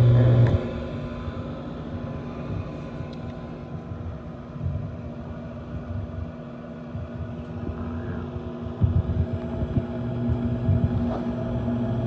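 Intertherm mobile home gas furnace running: a steady motor hum with a deep rumble that falls away about half a second in and comes back more faintly near the end, with a few light knocks in between.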